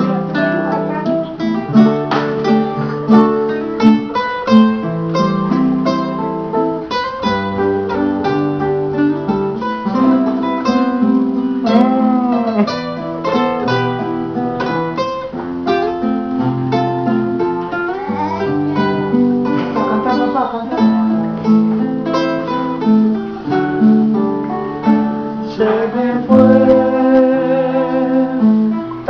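Acoustic guitars playing a song in picked and strummed notes, with a man singing along.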